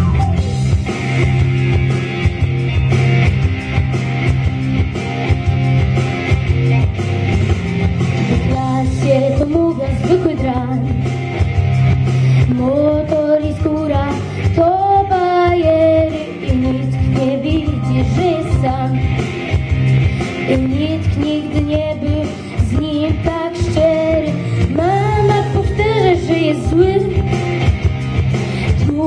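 A boy singing a song into a microphone over a backing track played through a PA system. For the first several seconds only the backing track plays. His voice comes in about eight seconds in.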